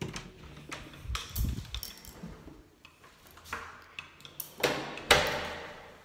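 Metal keys clinking and tapping as they are handled, in a run of small sharp clicks. A louder knock comes about five seconds in, followed by a short rustle.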